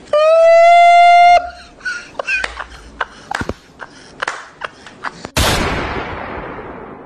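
Comedy sound effects: a loud, steady horn-like blast lasting about a second and a half, then scattered short clicks and voice fragments. About five seconds in, a sudden whoosh of noise fades away over the next two seconds as the channel logo appears.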